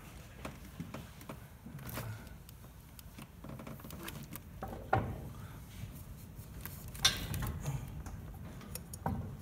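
Sporadic light metallic clanks and knocks as the hoisted engine is pushed and shifted into the engine bay, with two sharper knocks about five and seven seconds in.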